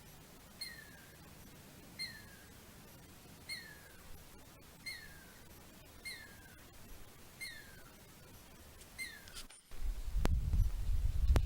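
An animal calling: a short whistle sliding downward in pitch, repeated evenly about every second and a half. About a second and a half before the end it cuts to louder low rumbling noise, like wind on the microphone or handling.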